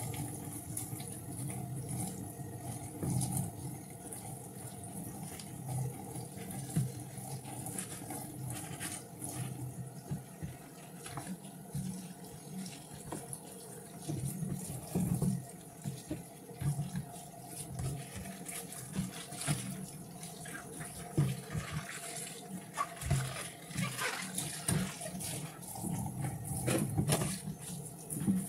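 Water running in a kitchen sink while plastic food containers are washed by hand, with irregular light knocks and clatter of the plastic tubs and lids.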